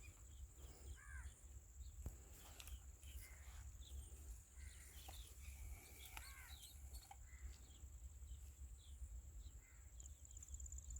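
Faint outdoor ambience: scattered bird chirps and short calls over a steady low rumble, with a thin high steady tone.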